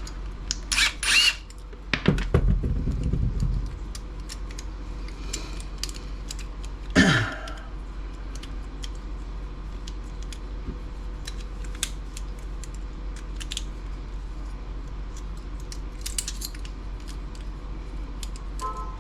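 Small metal and plastic parts of a laptop docking station's lock clicking and clattering as they are handled and worked apart with hand tools, with a cluster of louder clatter in the first seconds and a louder single handling noise about seven seconds in.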